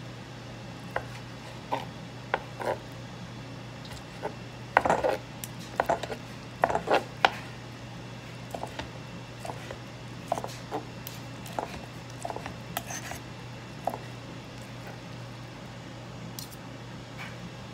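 Kitchen utensils clinking and knocking against dishes and a pot in scattered taps, busiest about five to seven seconds in, over a steady low hum.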